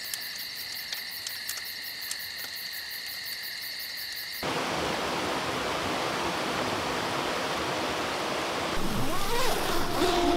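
Night insects trilling in a steady high chorus, with a few faint crackles, cutting off suddenly about four seconds in to the even rush of a rocky mountain creek flowing over stones. Near the end a short tone sweeps up and then down as the sound grows louder.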